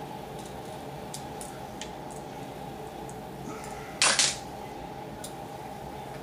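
A short, sharp double snap about four seconds in, with a few faint ticks, as the tyer's hands work tools at the fly-tying vise to finish the fly's head. A steady low hum runs underneath.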